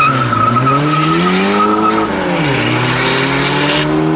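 Car launching from a drag-strip start: the engine revs up hard with a tyre squeal, drops sharply at a gear change about two seconds in, then pulls up through the revs again.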